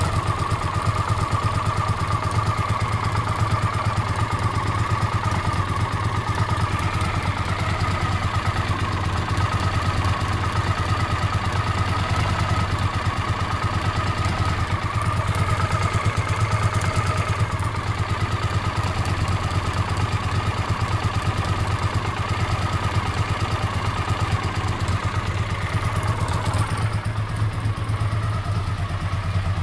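Honda CX500 liquid-cooled V-twin idling steadily with a clicking from the left cylinder head, which the owner suspects is a leaking exhaust gasket or, at worst, a cam chain near the end of its life.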